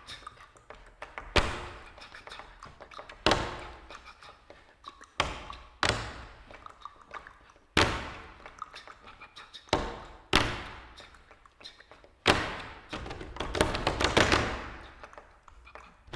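Performers' hands striking wooden tabletops in a contemporary percussion piece: single sharp slaps every one to two seconds, each followed by a fading scratchy rubbing, and a dense flurry of quick taps that swells and fades near the end.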